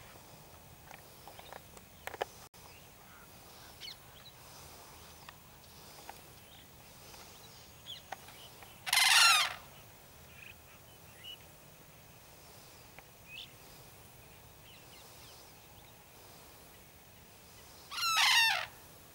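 Sarus cranes calling: two loud, brief bursts of calls, about nine seconds in and again near the end. Faint short chirps can be heard in between.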